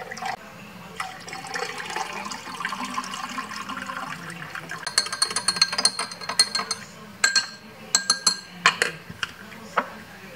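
Water poured from a pitcher into a drinking glass, the pour rising in pitch as the glass fills. About halfway through, a metal spoon stirs the drink, clinking rapidly against the inside of the glass, with a few louder clinks near the end.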